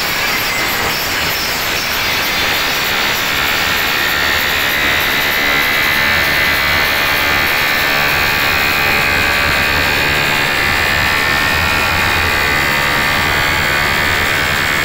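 Truck-mounted DJ loudspeaker stacks playing at full volume, heard as a loud, distorted, steady wall of sound with a deep bass pulsing underneath.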